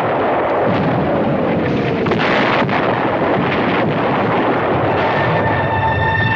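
Battle sound effects during an infantry assault: a continuous heavy rumble of explosions with several sharp bangs, and a falling whistle in the first two seconds. A steady held tone comes in about five seconds in.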